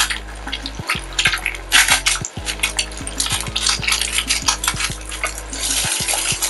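Egg frying in oil in a nonstick pan, sizzling, with a spatula scraping and clicking against the pan as the egg is loosened and turned over.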